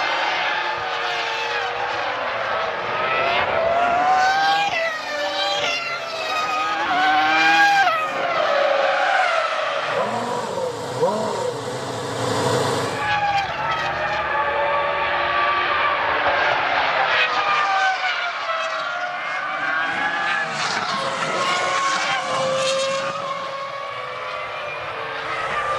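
Several 2001 Formula One cars' 3.0-litre V10 engines at high revs, several overlapping. The pitch climbs through upshifts and drops on downshifts, over and over, with a rougher, noisier stretch partway through.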